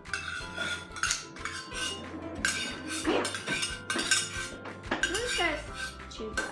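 Kitchen utensils, measuring cups and bowls clinking and clattering: a string of short knocks and clinks as slime ingredients are handled.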